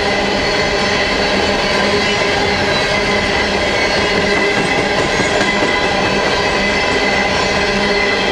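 Long train of empty coal hopper cars rolling past: a steady, loud noise of steel wheels on rail, with thin ringing tones held throughout.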